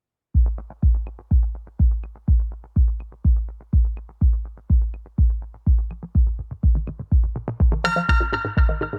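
Electronic intro music: a steady kick-drum beat at about two beats a second, with a bright synth chord coming in near the end.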